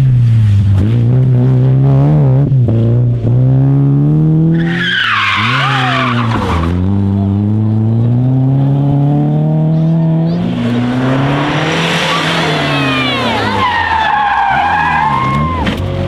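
Rally car engines, BMW E30s among them, revving hard and falling back through gear changes as the cars slide on a loose surface. High squealing sounds come in about five seconds in and again from about ten seconds until near the end.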